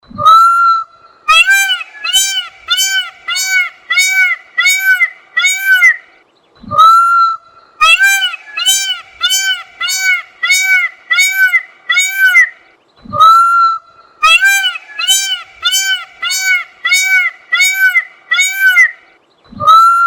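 Indian peafowl (peacock) calling loudly in three bouts. Each bout is one longer drawn-out note followed by a rapid series of about eight short, nasal, arching calls at roughly two a second.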